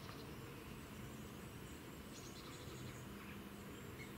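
Faint countryside ambience: a steady low background rumble with a few distant birds chirping, including a quick trill a little past two seconds in.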